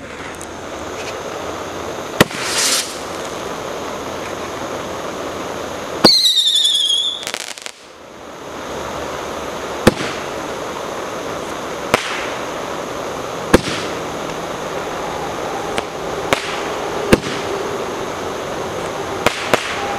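Crazy Clubs Roman candle firing: a steady hiss of burning composition, broken by sharp pops every few seconds as shots are thrown. About six seconds in comes a loud whistle that falls slightly in pitch over about a second.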